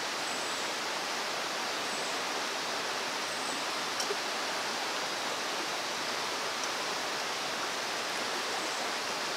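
Babbling brook running: a steady rush of water, with a faint click about four seconds in.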